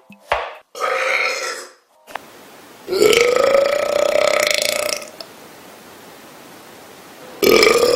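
A person belching on command: one long, drawn-out burp of about two seconds, held at a steady pitch, with another loud burp starting near the end.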